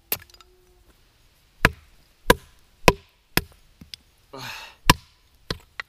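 Knife being batoned through a small block of wood to split kindling: a wooden stick strikes the spine of the blade in seven sharp knocks at uneven intervals. There is a short hiss just before the loudest knock.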